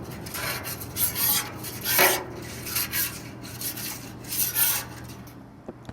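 Repeated scraping and rasping strokes across the steel top of a Blackstone flat-top griddle as oil is spread over the heated surface. The strokes stop shortly before the end.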